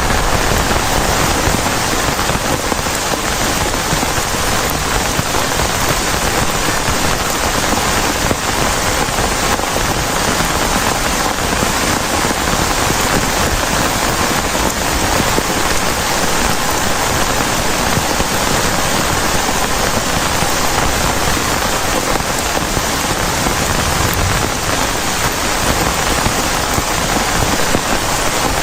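Heavy rain falling steadily on a plastic tarp shelter: a dense, even hiss that holds constant without a break.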